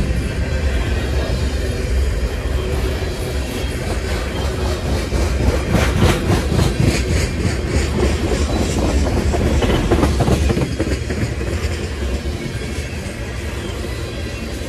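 Freight train tank cars rolling past close by: a steady low rumble of steel wheels on rail, with a run of rapid clickety-clack in the middle that fades out in the last few seconds.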